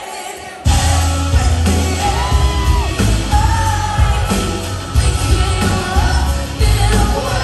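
Live pop band with a lead singer, heard from the crowd in a large hall. The band's bass and drums are out at first, then the full band comes back in under a second in, with the singer's voice over it.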